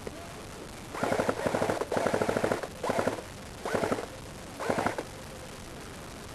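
Airsoft gun firing in five short full-auto bursts, each a rapid run of clicks, the first two the longest.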